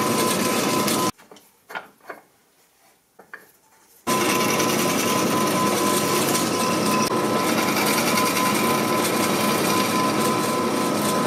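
Drill press running with a steady motor whine while drilling into wood. It stops abruptly about a second in, leaving a few light knocks, and starts again abruptly about four seconds in.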